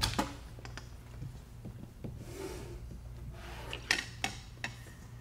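Lenses and gear being handled on a tabletop: a sharp knock at the start, a soft rubbing sound around the middle, and a few light clicks and knocks near the end, over a steady low hum.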